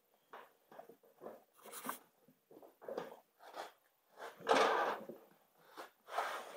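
Rubber inner tube rustling and scraping against the tire and steel rim as hands work it into a snowblower tire, in a run of short, irregular scrapes, the loudest about four and a half seconds in.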